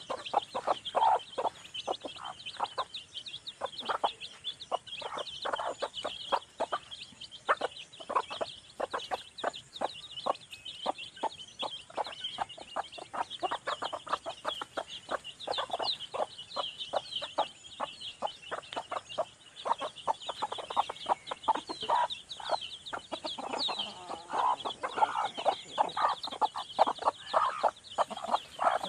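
Chickens clucking, with a steady chorus of high chick peeps over it, many short calls every second.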